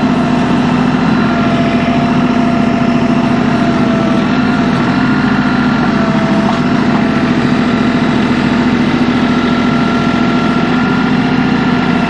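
Tractor engine running steadily while the tractor lifts a very heavy rock.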